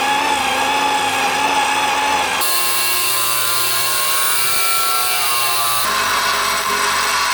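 An electric power tool running steadily throughout, its pitch and tone changing abruptly about two and a half seconds in and again about six seconds in.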